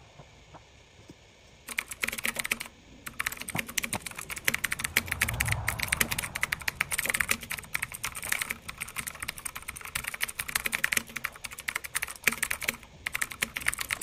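Rapid computer-keyboard typing clicks, starting about two seconds in and running on with two short pauses.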